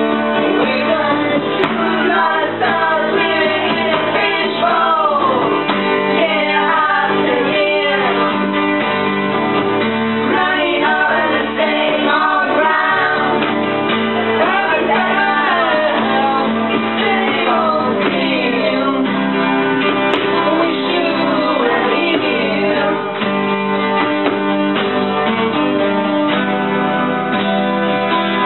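Several acoustic guitars played together, with a group of voices singing along.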